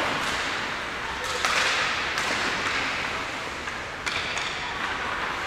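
Ice hockey play: skate blades scraping across the ice, with several sharp clacks of sticks and puck, the clearest about a second and a half in and again around four seconds in.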